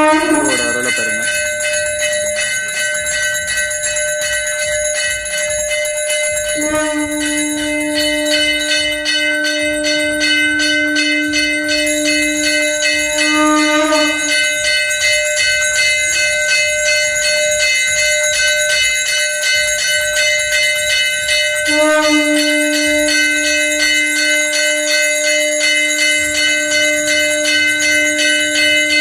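Temple bells ringing fast and without a break during aarti worship. A steady low tone joins twice, for several seconds each time: about 7 seconds in, and again from about 22 seconds.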